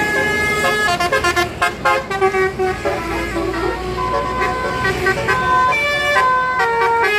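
Tour bus telolet horn, a set of multi-tone air horns, playing a melody: a quick run of short notes, then longer held notes, over a low engine rumble.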